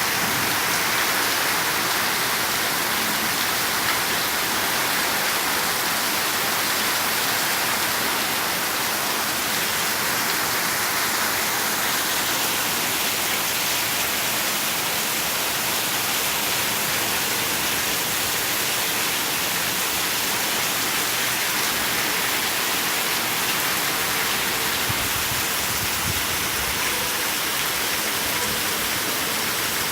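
Rain falling steadily, an even hiss of drops with no break.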